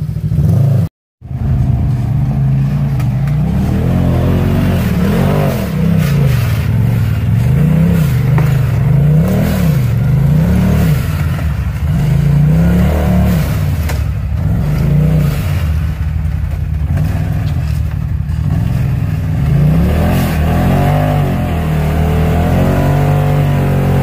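Side-by-side UTV engine revving up and dropping back in repeated throttle blips as it crawls up a rock ledge. The sound cuts out briefly about a second in.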